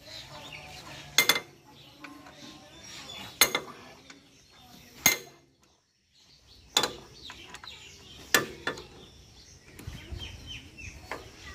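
Sharp metal clinks, one every one to two seconds, from a steel socket wrench and bar being fitted onto and worked against the bolts of a power tiller's cast-iron gearbox housing. The sound drops out completely for a moment about halfway.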